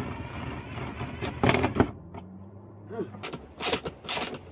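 Power-tool work on a bolted steel plate: a cordless drill hums with a couple of loud grinding bursts, then a run of short sharp clicks and clinks from hand tools turning the nuts.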